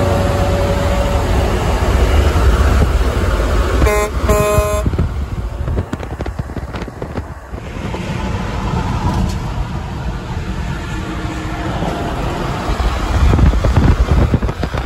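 Two short blasts about four seconds in from a Freightliner FL50's pair of Hadley air horns, over steady highway road noise.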